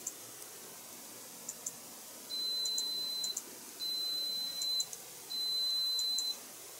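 Three long electronic beeps at one high pitch, each about a second long and about a second and a half apart, starting about two seconds in.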